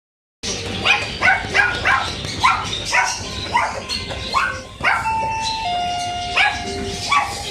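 A small dog yapping, about a dozen short, sharp barks at two to three a second, with a couple more near the end. From about five seconds in, a few held electronic chime tones sound alongside.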